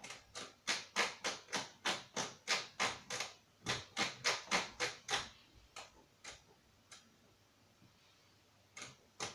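Thermomix selector dial clicking as it is turned step by step to set the cooking time and temperature, about three clicks a second. The clicks thin out and stop about six seconds in, then a few more come near the end.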